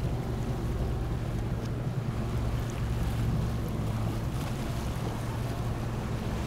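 Motorboat engine running steadily at low speed, a constant low hum, with wind on the microphone.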